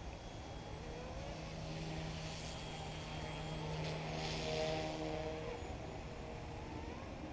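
Yu Xiang UH-1 Huey RC helicopter's motor and rotors whining, the pitch gliding up and down as it manoeuvres and growing loudest a little past the middle, over a steady low rumble.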